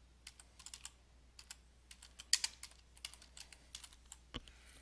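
Typing on a computer keyboard: a run of irregular key clicks, then a single louder click near the end.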